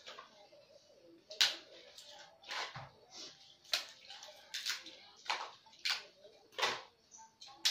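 Crisp grilled rice paper (bánh tráng nướng) being snapped and crunched. It makes short, sharp cracking sounds about once a second.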